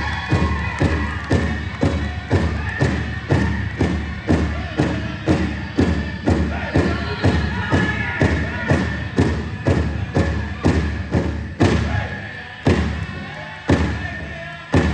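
Powwow drum struck in a steady beat, about two strokes a second, with singers' voices over it. Near the end the beats spread out to about one a second.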